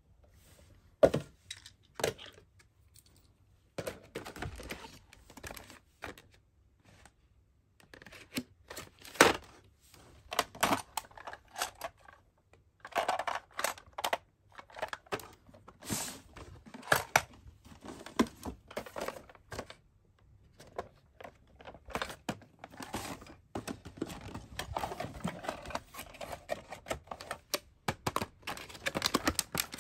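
Toy cars and their plastic packaging being handled: irregular clicks and taps of plastic against plastic, with crinkling of stiff blister packs and card boxes.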